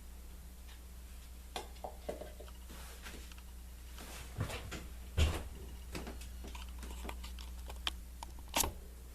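Scattered faint clicks and taps as a small ball of soft soap scrapings and a measuring spoon are handled, the sharpest about halfway through and another near the end, over a low steady hum.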